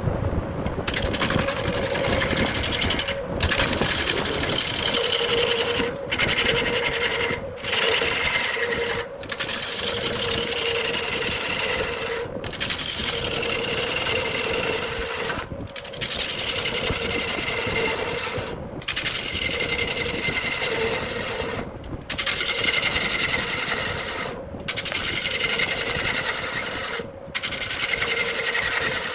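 Wood lathe turning a burl log while a gouge cuts into the spinning wood: a steady motor hum under a rough, scraping cutting noise. The sound drops out briefly every two to three seconds.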